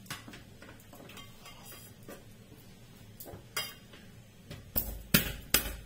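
Kitchen knife slicing fresh ginger on a plastic cutting board: faint scattered taps, then several sharper knocks of the blade hitting the board near the end.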